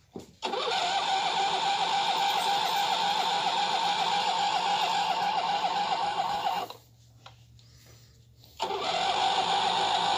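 2006 Huskee riding tractor's engine being turned over on the ignition key. It comes in abruptly half a second in and runs steadily, cuts off suddenly about six and a half seconds in, then starts up again about two seconds later.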